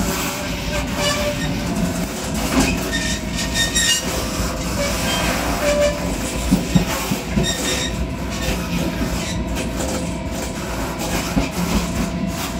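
Taiwan Railways local train running, heard at the gangway connection between two cars: a steady rumble with scattered knocks and rattles and short high squeals.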